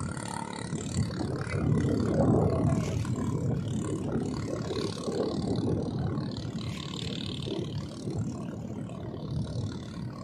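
Small motorized outrigger boat's engine running at speed as the boat moves away across the water, loudest about two seconds in and then slowly fading.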